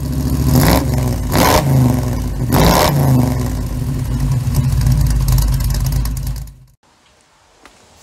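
Dodge Ram's 5.7 Hemi V8 being cranked over by the starter without firing, a steady whirring crank with some clatter that cuts off abruptly after almost seven seconds. The engine will not catch because its timing chain has failed.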